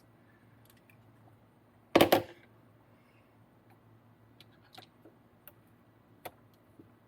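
A single sharp clatter about two seconds in, then a few faint clicks: small kit parts and tools being handled and set down on a work surface during an RC car build.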